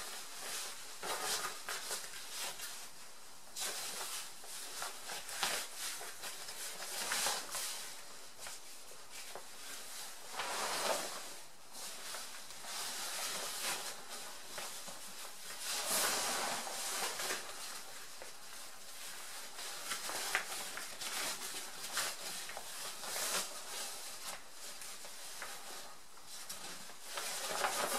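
Rustling of a British Army Gore-Tex bivvy bag's fabric as someone shifts inside it and cinches the hood shut with its paracord drawstring and toggle, coming in irregular swells.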